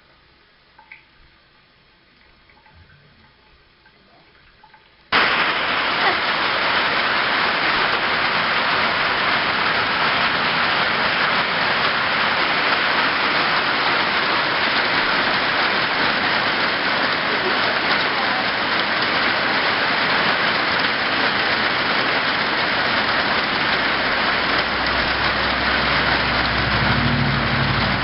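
Heavy rain pouring down, a loud steady hiss that starts suddenly about five seconds in after a quiet stretch with a few faint clicks. A low rumble joins near the end.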